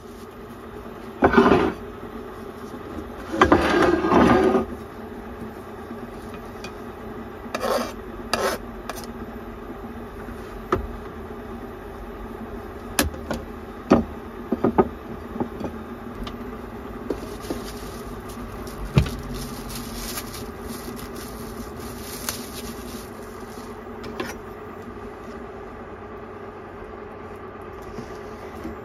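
Kitchen handling sounds: a knife scraping shredded daikon across a plastic cutting board in two short loud scrapes near the start, then scattered light clicks and taps as the daikon is laid on a plate and utensils are set down. A steady low hum runs underneath.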